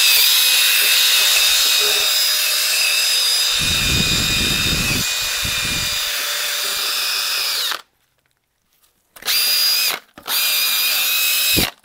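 Cordless drill spinning a brass wire brush against the aluminium block of a Reliant engine, scouring out dirt and corrosion around the cylinder-liner seats. It runs steadily with a high whine and a rougher scrubbing sound for a while, cuts off suddenly about eight seconds in, then gives two short bursts.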